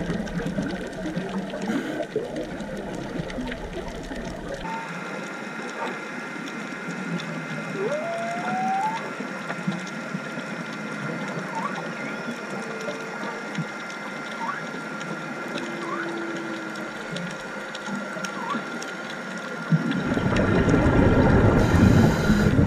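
Underwater sound heard on a diving camera: a steady hum with a scatter of short rising squeals, then from about twenty seconds in a loud rushing of exhaled scuba bubbles.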